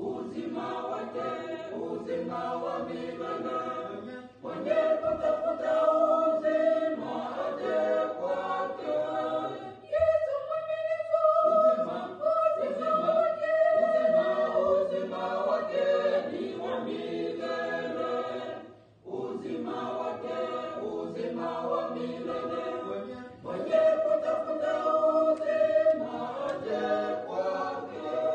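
A small choir of men's and women's voices singing a gospel song together, in phrases broken by short pauses.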